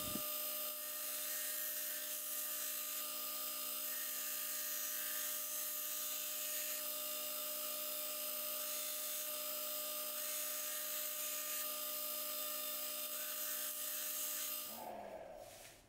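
Belt grinder running with a hand-held Damascus steel Bowie blade pressed to the belt, free-grinding the initial bevel: a steady motor hum with a grinding hiss. Near the end it cuts off and fades out over about a second as the grinder winds down.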